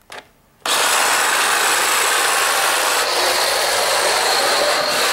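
Remote-control car spinning doughnuts: its electric motor whirring and its tyres scrubbing on the floor, a loud, steady noise that starts suddenly under a second in after a brief silence.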